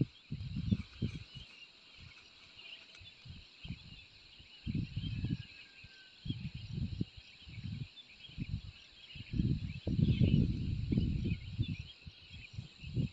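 Steady high chorus of insects chirring in the evening, with irregular low rumbling bursts on the microphone that come and go every second or so and are loudest near the end.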